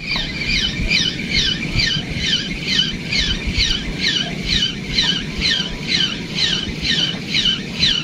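Fishing reel being cranked to retrieve the line, squeaking once per handle turn: a short falling squeak repeating evenly between two and three times a second.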